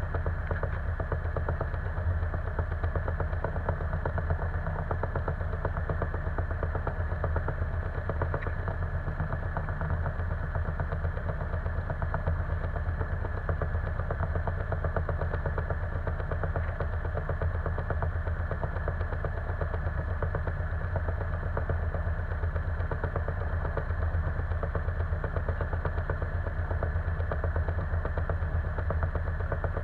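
Single-engine light aircraft's piston engine and propeller idling, heard inside the closed cockpit as a steady, even low drone.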